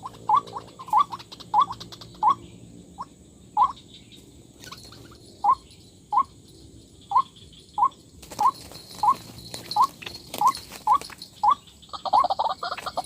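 White-breasted waterhen (dahuk) calling: a run of short, sharp 'kwak' notes at about one to two a second, which grow faster and overlap into a dense chatter near the end.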